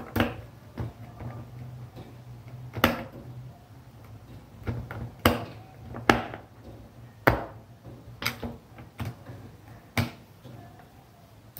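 Irregular sharp clicks and taps of a control wire being handled and fitted into the screw terminals of plastic motor contactors, about a dozen over the stretch, with a faint low hum under the first half.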